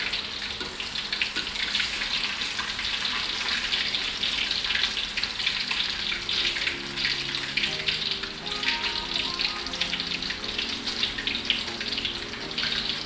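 Battered dori fish fillets deep-frying in hot oil in a wok: a steady, dense sizzle and crackle.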